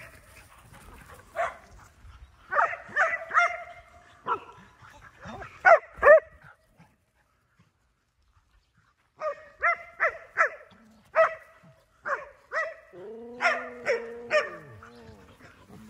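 Dog barking in clusters of short, sharp barks, with a pause of a couple of seconds in the middle. Near the end comes a longer, lower drawn-out call.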